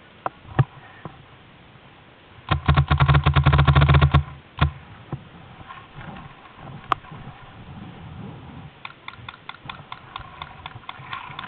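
Paintball marker firing a rapid burst of about twenty shots in under two seconds, with one more shot just after. Fainter scattered shots or clicks follow near the end.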